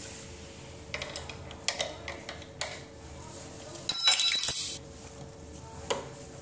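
Metal clicks and clinks as a steel pedal is threaded and tightened onto a spin bike's crank arm, with a loud metallic rattling ring lasting about a second in the middle.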